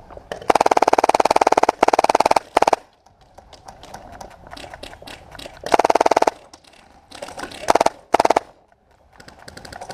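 Airsoft rifle firing on full auto in several rapid bursts: two long strings in the first three seconds, a short one just after, another about six seconds in, and two quick bursts near the end.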